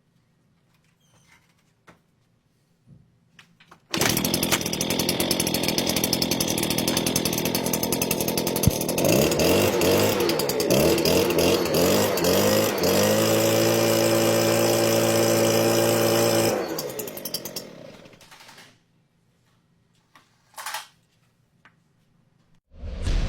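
Small two-stroke engine of a Stihl backpack sprayer starting up about four seconds in. It is revved up and down several times, then held at a steady high speed, and then shut off, dying away. The repaired engine now starts and runs.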